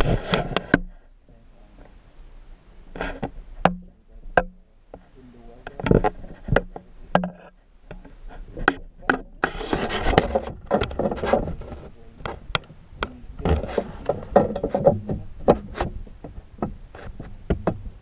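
Handling noise close to the microphone: irregular sharp clicks and rubbing, with muffled voices at times.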